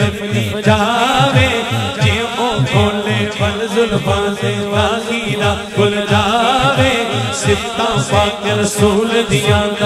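Naat sung by a male vocalist through a PA microphone, an ornamented melody with heavy vibrato over a chanted backing and a repeated low pulse, about three a second.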